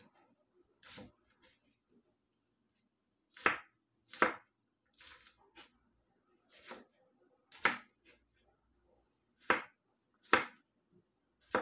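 Kitchen knife chopping cucumber into cubes on a plastic cutting board: about nine sharp, unevenly spaced chops, roughly one a second.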